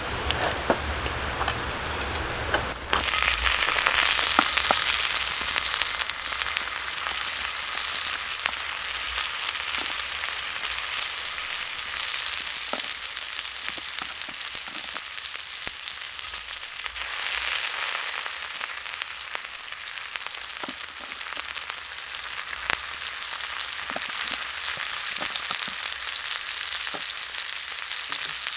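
Meat sizzling on an iron plate heated over a campfire, a steady hiss with scattered small pops. The sizzle jumps up suddenly about three seconds in and is loudest for a few seconds after.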